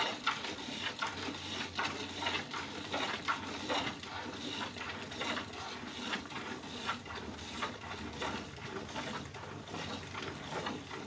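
Cow being milked by hand: jets of milk squirting into a plastic bucket in a steady rhythm, about two to three squirts a second.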